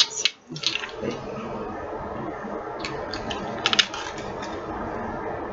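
Handling noise from a piece of jewellery held close to the microphone: a few light clicks and rustles, a cluster of them a little before four seconds in, over a steady background hiss.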